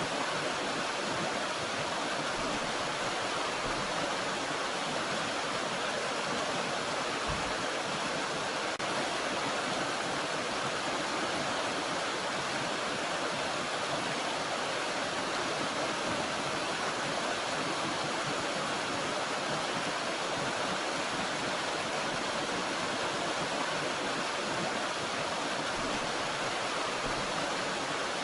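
Water of a small mountain stream and waterfall rushing steadily.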